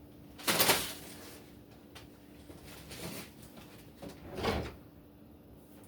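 Handling noises: brief sliding, scraping sounds as the wall clock and its packaging are moved, the loudest about half a second in, another about four and a half seconds in.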